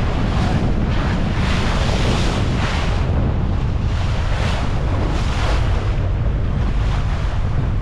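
Strong wind buffeting the microphone over choppy sea, with repeated washes and splashes of water coming and going about once a second.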